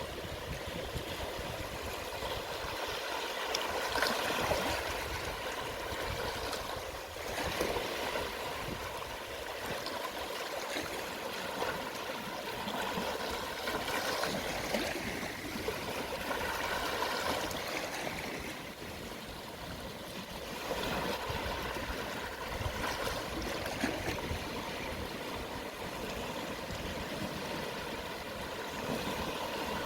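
Small, calm sea waves washing onto the shore at low tide: a steady hiss of water that swells and falls back every few seconds.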